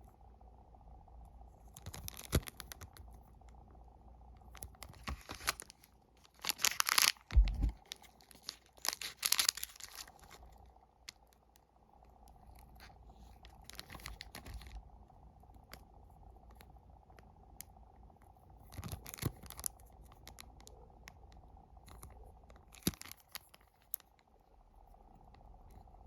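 Plastic snack wrappers crinkling and being torn open in several short bursts, the loudest about a third of the way in, with one low thump among them. A faint steady hum runs underneath.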